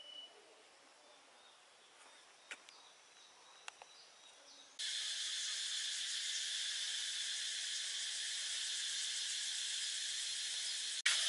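Faint quiet with two small clicks, then, a little under five seconds in, an abrupt cut to a steady, high-pitched insect chorus, a shrill buzzing drone with no pauses. It cuts off shortly before the end.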